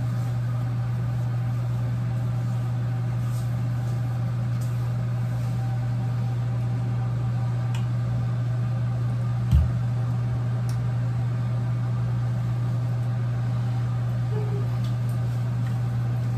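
Steady low hum of a motor or electrical appliance, unchanging throughout, with one dull thump about halfway through.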